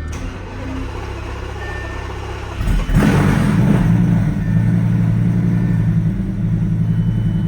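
Lamborghini Gallardo V10 starting: after a steady low hum it catches about two and a half seconds in, flares up and settles into a steady idle with a slightly uneven pulse, the engine misfiring after new coil packs and differently gapped spark plugs were fitted.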